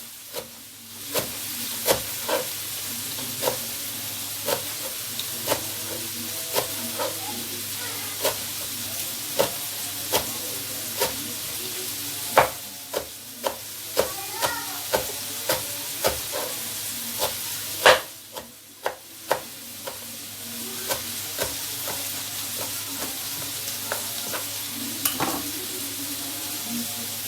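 Kitchen knife cutting parsley on a cutting board: sharp knocks about once a second, sometimes in quicker runs, over a steady hiss.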